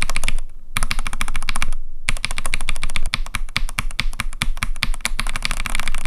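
Fast typing on a mechanical keyboard fitted with Gateron X linear switches: a dense run of quick key clacks, with two brief pauses, about half a second and two seconds in.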